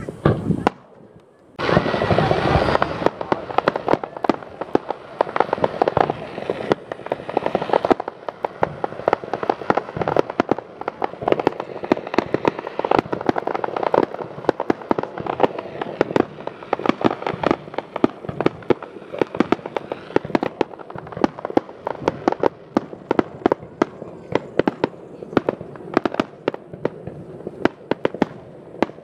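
Aerial fireworks display in full barrage: many shells bursting in quick succession, a dense run of bangs and crackle with a brief lull about a second in.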